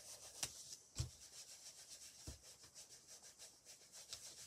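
A foam ink-blending tool scrubbing ink over napkin-covered paper: faint, rapid rubbing strokes, with two light knocks in the first second.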